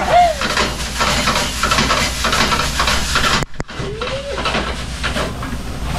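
Food sizzling as it is stir-fried in a frying pan on a gas stove, with a metal spatula scraping and clicking against the pan. The sound briefly cuts out a little after halfway.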